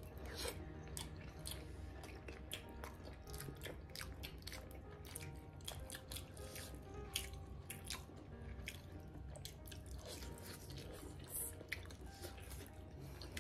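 Faint close-up eating sounds of steamed pork momos being chewed: many small, irregular wet clicks and smacks of mouths and fingers.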